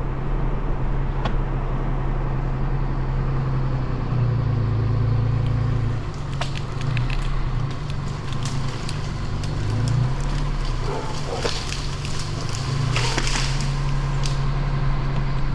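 A vehicle engine running steadily under load as it drags on a rope tied to a tree, its note lifting a little about four seconds in and again around ten seconds. From about eleven seconds in, wood and branches crack and snap in a run of sharp bursts, loudest near thirteen seconds, as the tree comes down.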